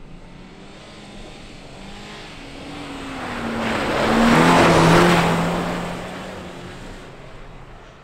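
Subaru Impreza hatchback's flat-four engine passing close by at speed: its note climbs as the car approaches, drops in pitch as it goes by about halfway through, loudest there together with the rush of tyres on the icy, sanded track, then fades away.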